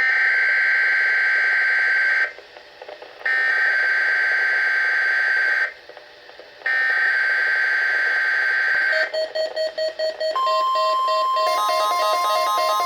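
Weather radio emergency alert data burst: three bursts of steady, harsh digital warbling about two seconds each, with short gaps between them. About 9 seconds in, a rapid electronic beeping starts. A steady high alert tone near 1 kHz then begins, with stepped electronic beeps sounding over it.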